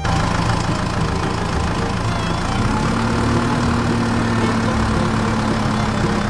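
Tractor engine running steadily. It starts abruptly and its pitch rises slightly about two and a half seconds in.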